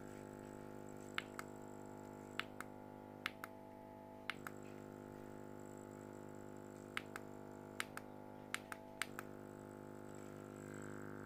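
Battery-powered rechargeable aquarium air pump running with a quiet, steady hum while its panel buttons are pressed about eight times, each press a short double click. The hum changes slightly after some presses as the output setting is stepped.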